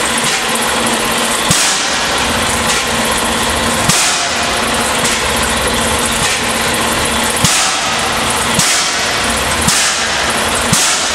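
A large old stationary engine running slowly with its heavy flywheel turning, giving a sharp thump at uneven gaps of one to three seconds, over the steady hiss of a blowtorch flame held against the engine.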